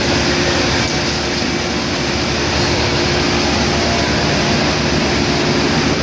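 Fishing vessel's engines and deck machinery running: a loud, steady drone with a constant hum running through it.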